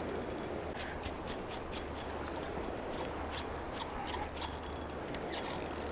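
Spinning reel being cranked: a run of light, quick clicks, about four or five a second, over a steady low rush of background water.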